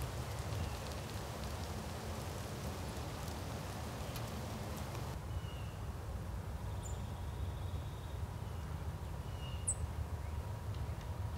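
Outdoor ambience at bird feeders: a steady low wind rumble with faint clicks and rustles in the first half, then a few short, faint bird chirps and two brief high notes in the second half.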